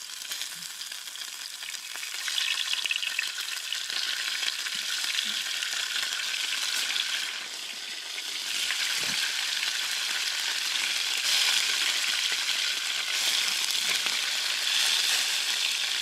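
Ham sizzling as it fries in a pan, a steady hissing crackle that gets louder about two seconds in, eases briefly near the middle, then builds again.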